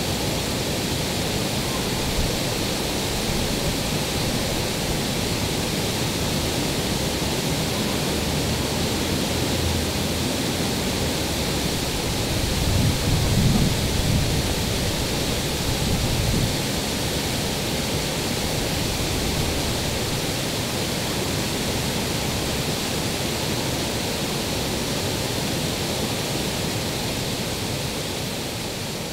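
Fountain jets splashing into a stone basin: a steady rush of falling water. A short low rumble comes about halfway through.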